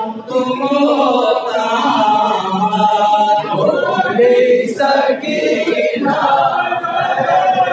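Male voices chanting a noha, a Shia mourning lament, unaccompanied.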